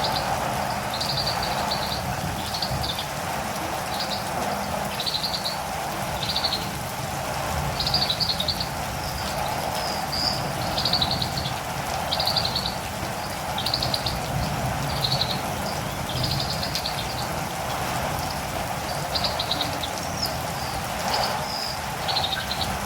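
Steady rain falling, with a catirumbava (olive-green tanager) giving short, high, trilled chirps about once a second.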